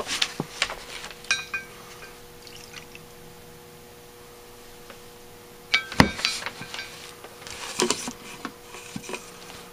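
Mineral spirits squirted from a plastic dispenser into the float bowl of a Rochester B one-barrel carburetor, liquid splashing and trickling amid small clicks of handling, with a sharp knock about six seconds in.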